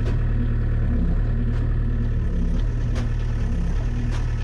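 Case mini excavator's diesel engine running steadily, with a faint sharp tick about every second and a half.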